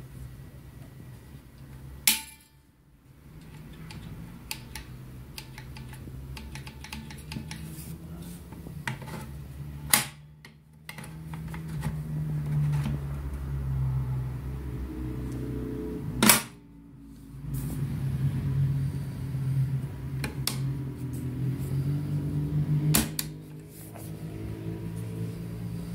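Handling of a full-metal replica rifle: four sharp metallic clacks several seconds apart, with lighter clicks and rattles between them, over a steady low hum.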